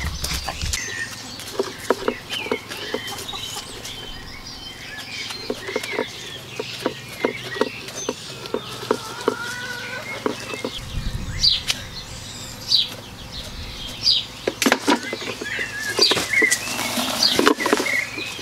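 Small birds chirping, with scattered light clicks and knocks, and a brief rush of noise near the end.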